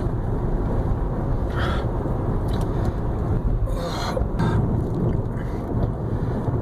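Steady low rumble of a car, with a few short hissy sounds over it.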